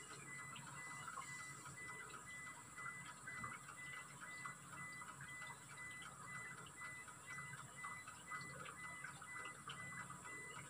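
Faint trickle of cooking oil poured from a plastic bottle into a car engine's oil filler neck, with soft irregular light ticks.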